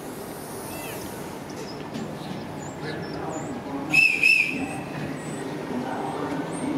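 Electric commuter train (Civia unit) approaching along the platform, its running noise slowly growing, with a two-pulse high-pitched horn whistle about four seconds in.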